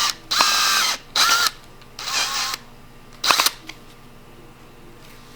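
Power drill run in several short bursts with a whining motor, driving a screw down further.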